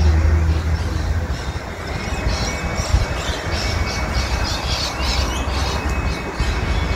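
Birds squawking in a quick run of repeated harsh calls from about two seconds in, over a steady low rumble.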